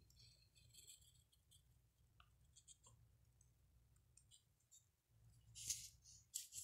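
Faint scratching of a graphite pencil on lined notebook paper: short scattered strokes, with a louder run of strokes about five and a half seconds in and again near the end.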